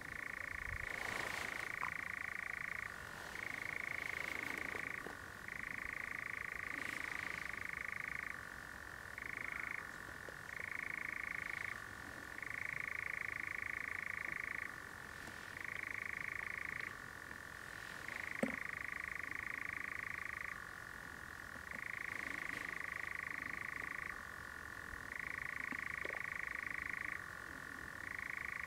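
Common nightjar churring: an unbroken mechanical trill that shifts every second or two between a higher and a lower pitch.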